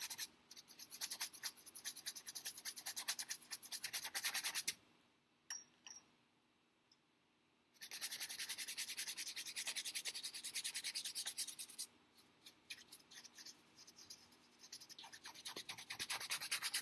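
Bristle paintbrush scrubbing a thin oil wash onto stretched canvas in rapid back-and-forth strokes. It stops for a few seconds partway through, then scrubs again, the strokes thinning out near the end.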